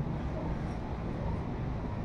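Steady low background hum of the room, with no distinct event.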